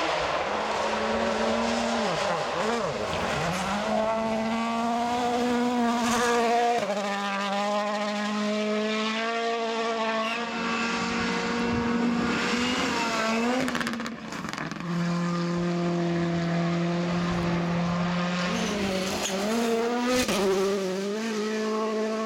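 World Rally Car engines at high revs on gravel stages. Each engine note holds steady for a few seconds, then jumps or dips in pitch several times, over tyre and gravel noise.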